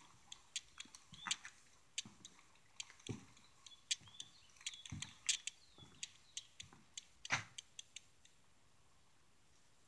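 Footsteps on the wooden floor deck of a house under construction: scattered sharp clicks and creaks with a few dull thumps, stopping about eight seconds in.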